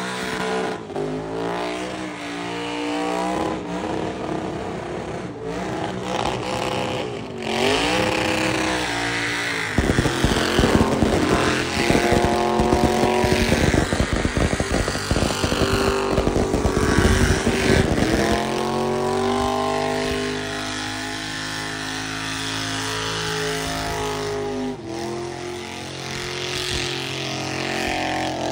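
Lifted truck's engine revving hard through a tyre-smoking burnout, its pitch climbing and dropping. For about eight seconds in the middle it runs loudest with a rapid stutter, then holds at high revs.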